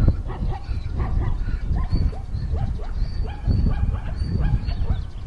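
Leopard growling as it feeds on a zebra carcass, over a dense low rumbling background, with many short pitched calls that bend in pitch.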